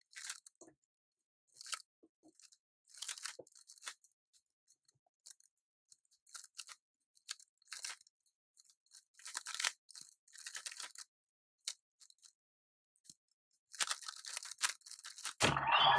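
Light plastic clicking and rattling in short, irregular bursts from hands handling a speed cube and a plastic stackmat timer, with a denser flurry near the end.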